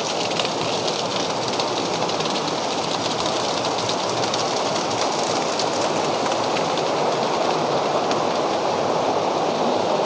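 Steady rush of water from a small waterfall spilling down a rock face and a shallow stream running over boulders.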